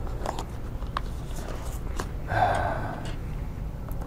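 Cardboard packaging being worked open: a few sharp clicks and taps as the box lid and seal are picked at with a small tool, with a louder half-second scratchy rustle a little past two seconds in.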